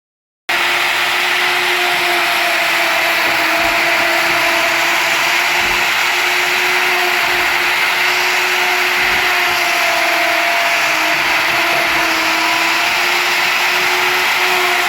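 CNC router spindle cutting a design into wood: a steady whine over a rushing noise, starting abruptly about half a second in, its pitch wavering slightly.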